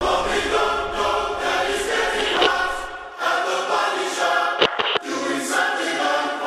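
Recorded music: layered voices singing in close, choir-like harmony, with two sharp clicks close together about three-quarters of the way through.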